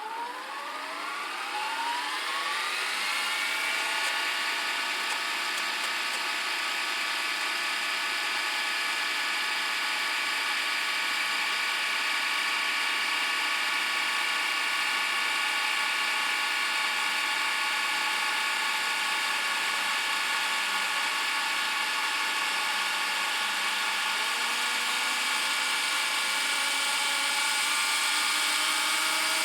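VHS video cassette recorder winding its tape at high speed. A motor whine rises in pitch over the first few seconds as the reels spin up, then holds steady, with a lower whine climbing again near the end.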